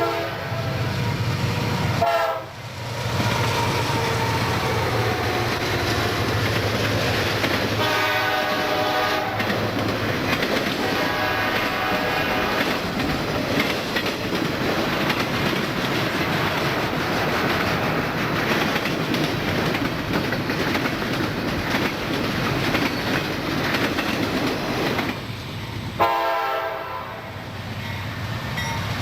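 Freight train rolling by with its wheels clattering over the rail joints, while the diesel locomotive's horn sounds three times: at the start, about eight seconds in, and again near the end.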